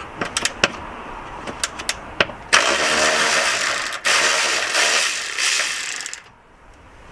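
Ratchet wrench with a 13 mm socket undoing the bolt of the handbrake-cable bracket. A few separate clicks come first. About two and a half seconds in, fast continuous ratcheting starts, breaks briefly at about four seconds, and stops about six seconds in.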